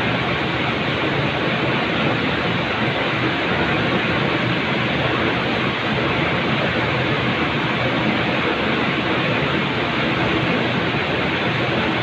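Steady rushing background noise of a factory floor, even and unbroken, with no separate clicks or knocks standing out.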